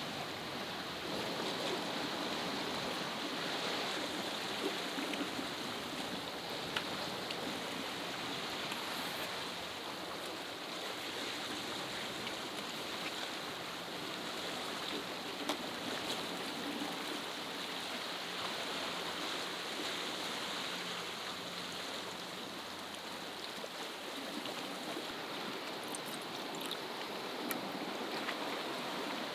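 Steady wash of sea waves against a rocky shore, an even rushing noise with a few faint ticks.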